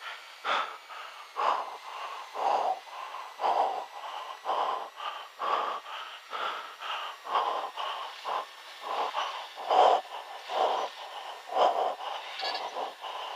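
A pilot's heavy, rapid breathing, about one breath a second, under the strain of a forced landing.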